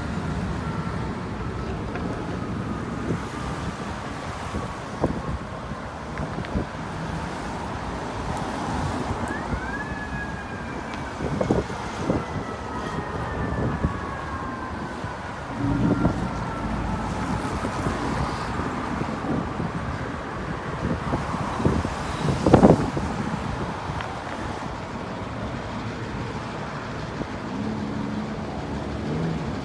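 A distant emergency vehicle siren wailing over city street traffic: a long, slowly falling tone that sweeps sharply up once about ten seconds in and then slowly falls again. A few short thumps sound through the traffic noise, the loudest past the middle.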